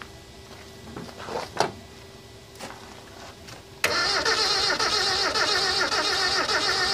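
The 1974 Toyota Corolla's engine being cranked by its starter, beginning suddenly about four seconds in with a loud, steady, pulsing whine: a first cold start attempt on an engine that has not run on its carburetor for about 25 years. Before it, a few light clicks and knocks, one sharp click about a second and a half in.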